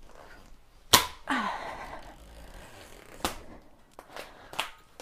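Tight tubeless rim strip being pulled around a bicycle rim: a sharp snap about a second in, followed by a short falling squeak, then a few lighter snaps and clicks.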